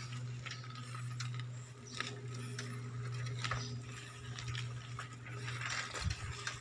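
Footsteps crunching and scuffing on a gravelly, debris-strewn dirt road, with light clicks from the handheld phone, over a steady low hum. The clicks come at irregular times, a few of them sharper, one near the end.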